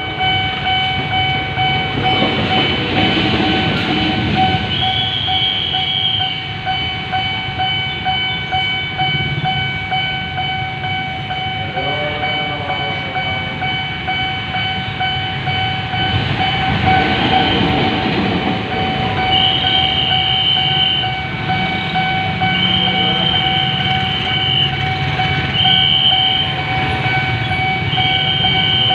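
A railway level-crossing warning siren sounds a loud, unbroken electronic tone while trains run past, their wheels and cars rumbling and swelling twice. Short high tones of about a second break in several times in the second half.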